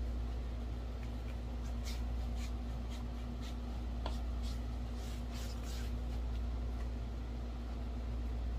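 Bristle paintbrush scrubbing paint across a primed canvas: a run of short scratchy swishes, about two a second, through the middle, over a steady low room hum.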